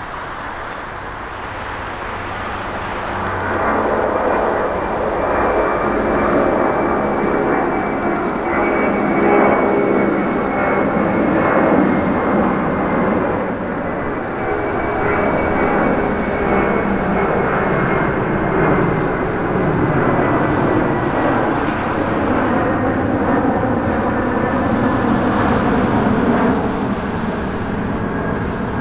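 A large airplane's engines running loud. The sound swells over the first few seconds and then holds, with a high whine that slowly falls in pitch.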